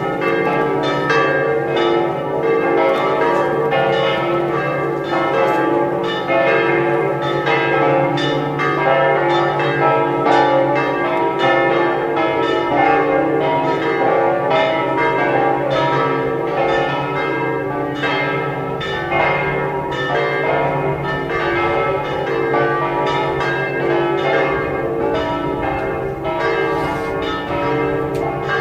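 Several large church bells of St Mark's Campanile pealing together, their strikes coming fast and overlapping over a steady low hum of ringing tones.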